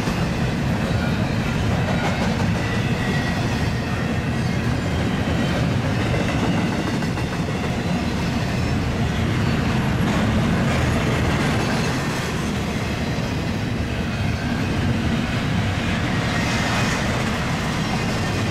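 Union Pacific double-stack freight train rolling past close by: a steady, loud rumble with the clatter of the cars' wheels on the rails, unbroken throughout.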